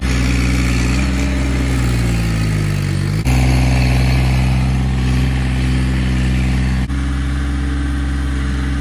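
Compact tractor engine running steadily as the tractor digs with its front loader. The note sags for a second or so, jumps back up about three seconds in, then holds steady.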